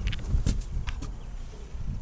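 Irregular knocks and clicks over a low rumble: footsteps and hand-held camera handling, with no engine running.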